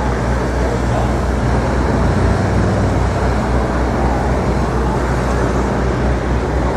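Steady street traffic noise: a dense rumble of passing vehicles with a low engine hum underneath.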